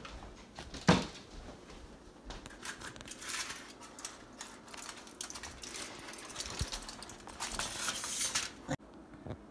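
Aluminium foil crinkling as it is peeled off a disposable foil baking tray, in crackly bursts, after a single thump about a second in.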